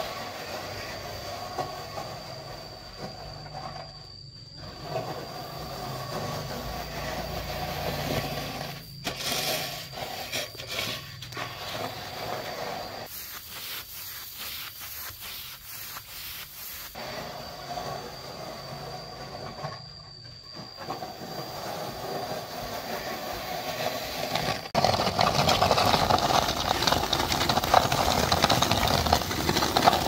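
A machine running with a steady rattling clatter and a thin, constant high whine, cut into several short stretches. It turns louder and rougher about 25 seconds in.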